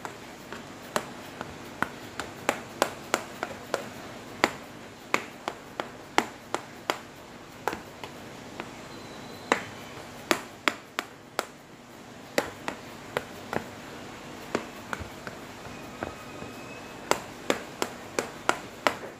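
Sharp, irregular pats, about two or three a second, as a hand presses and flattens pounded glutinous rice dough (jadah) into a metal pan.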